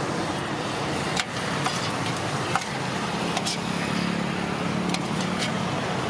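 Steady roadside traffic noise, with a vehicle engine droning more strongly for a couple of seconds past the middle. A few sharp clicks stand out, the loudest about a second in.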